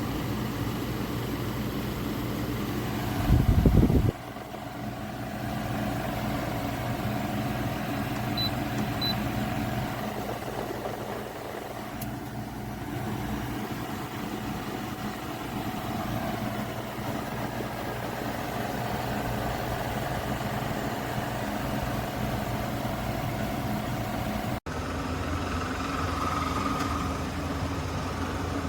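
GE 6,100 BTU portable air conditioner running in cooling mode, a steady machine hum with the rush of its fan. A brief, louder low rumble comes about three seconds in.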